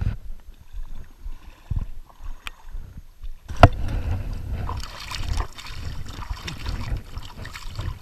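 Water sloshing and splashing around a person's legs as he wades through a shallow stream, with a low rumble of handling noise on the body-worn camera. There is a sharp knock about three and a half seconds in, after which the splashing is louder and fuller.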